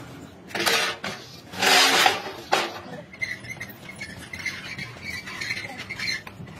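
Steel pipe being handled: three loud clattering, scraping bursts of metal in the first two and a half seconds, the middle one the longest. A faint steady high whine follows.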